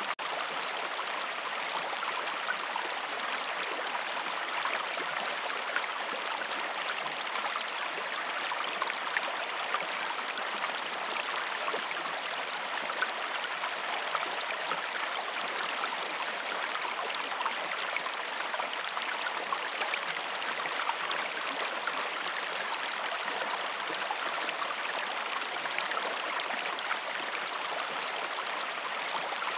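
River water flowing steadily, an unbroken rush of running water at an even level.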